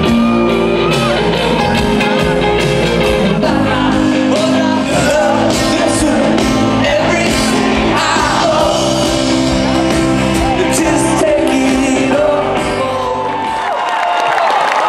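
Live rock band playing with a lead singer, heard from the concert crowd, with shouts from the audience. About thirteen seconds in the bass and drums drop out, leaving a held note.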